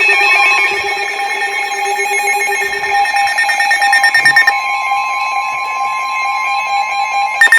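Weather radio receiver sounding its warning alert: loud, steady electronic alarm tones held together, one near 1 kHz throughout, turning into rapid beeping near the end. It signals an incoming severe weather warning.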